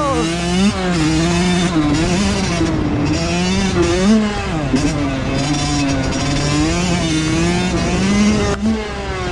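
Two-stroke dirt bike engine being ridden hard, its pitch climbing and dropping again and again with throttle and gear changes.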